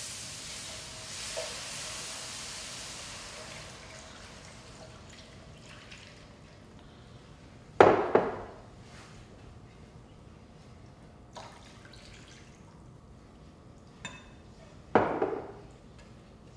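Milk poured into a hot skillet of butter-and-flour roux, hissing over the first few seconds and fading as it is stirred in. Two sharp knocks, about eight and fifteen seconds in.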